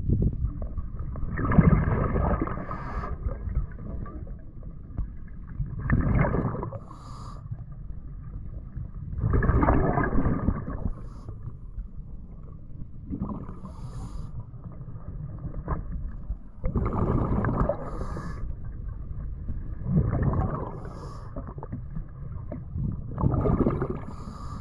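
Scuba diver breathing slowly and regularly through a regulator, heard underwater: a rush of air with bubbling about every three to four seconds, around seven breaths.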